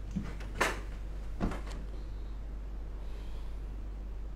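A few brief knocks or bumps, the loudest two about a second apart, over a steady low hum.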